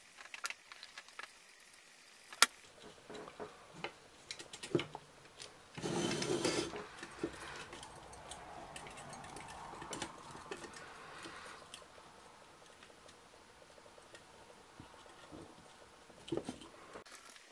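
Small clicks and rustles of hands handling plastic model parts and thin wires being fed up through the hollow plastic body, with one sharp click about two and a half seconds in and a longer scraping rustle around six seconds in.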